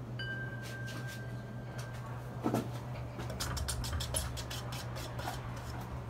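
Casablanca Lanai ceiling fan motor humming steadily, with a thin high tone in the first two seconds. A thump comes about two and a half seconds in, followed by a quick run of small metallic clicks and rattles from the ball pull-chains.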